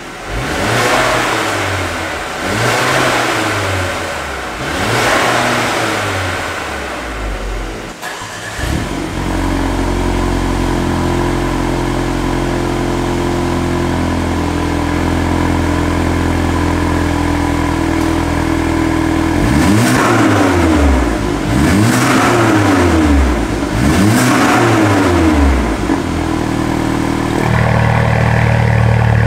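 Exhaust of a Mercedes-Benz CLA250's 2.0-litre turbocharged four-cylinder, fitted with a valvetronic catback and catless downpipes, with the exhaust valves closed. It gives three rev blips, then holds steady at raised revs for about ten seconds, then gives a few more quick blips, and holds steady again near the end.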